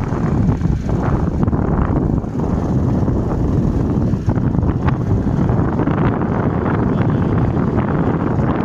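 Wind rushing over a phone microphone on a moving motorcycle, mixed with the motorcycle's engine running. The noise is loud and steady.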